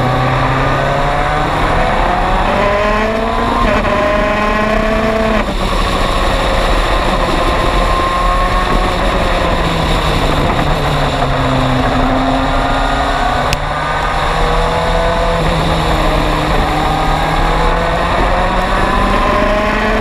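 MG Lola EX257 prototype's turbocharged four-cylinder race engine heard from the cockpit at racing speed, with wind and tyre rush over it. The engine note climbs and breaks off at each gear change in the first few seconds, sags around the middle, then climbs through the gears again near the end.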